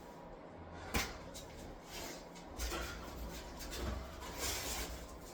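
A sharp knock about a second in, then scraping and rubbing of a trowel working mortar.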